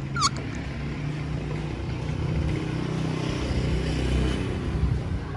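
Steady low rumble of a motor vehicle's engine running nearby, swelling a little midway. A single short, high, falling chirp comes just after the start.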